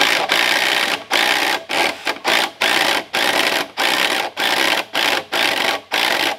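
Power drill driving a long screw into a log corner brace, run in a string of short bursts with brief breaks, about two a second.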